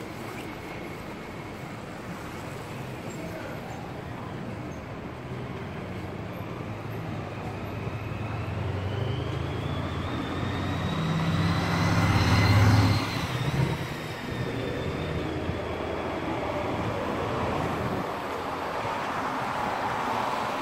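Street traffic: a motor vehicle drives past close by, its engine and tyre noise swelling to a peak about twelve seconds in and then dropping away, with a whine that rises and then falls in pitch. A steady hum of traffic runs underneath.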